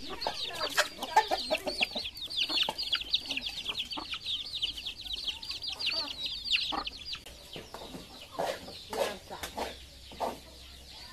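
A brood of chicks peeping constantly in quick, high, falling notes, with a hen clucking lower beneath them. The peeping stops about seven seconds in, leaving scattered clucks.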